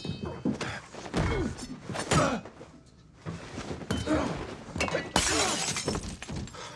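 Fight sounds in a film: a string of sharp blows and thuds, and glass breaking. The loudest crash of shattering glass comes about five seconds in.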